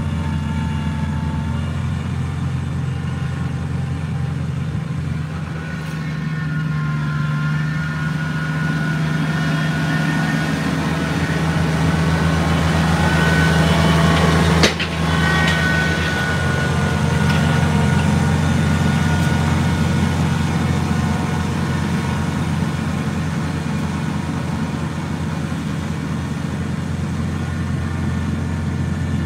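Kubota BX23S compact tractor's three-cylinder diesel running steadily while plowing snow, getting louder as the tractor comes close about halfway through and easing off as it pulls away. A single sharp click sounds at its closest point.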